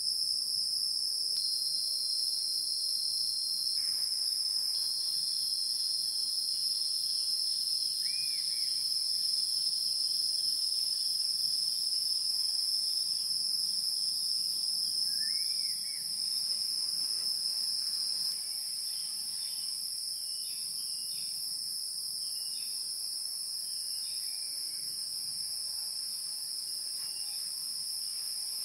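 A steady, high-pitched chorus of insects trilling without a break, with a couple of short rising chirps about 8 and 15 seconds in.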